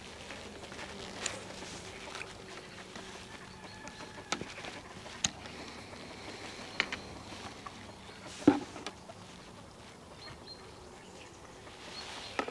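Fishing tackle being handled: scattered sharp clicks from the reel and rod as the line is wound in and the rod is set down, with one louder knock about eight and a half seconds in.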